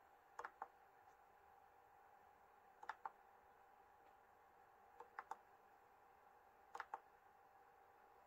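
Near silence with a faint steady hum, broken by four soft clusters of two or three quick clicks about two seconds apart.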